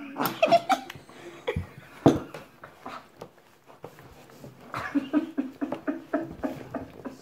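A boy's wordless vocal noises through a mouthful of runny milky dessert, spluttering as it dribbles out and ending in a string of quick laughing sounds. There is a single sharp knock about two seconds in.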